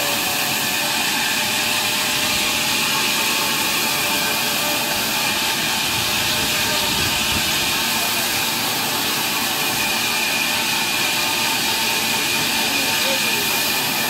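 Large sawmill band saw running and cutting lengthwise through a big log, a steady, even noise with a strong high hiss.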